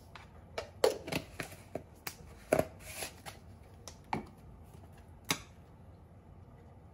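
A plastic seasoning shaker shaken and tapped over a small glass bowl, giving about a dozen sharp clicks and knocks with a short rattle, then plastic containers knocked against the counter as they are put down and picked up.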